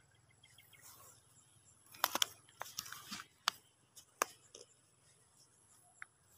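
Rustling and several sharp clicks from a black nylon strap and gear being handled close to the microphone, bunched between about two and four and a half seconds in, with one more click near the end.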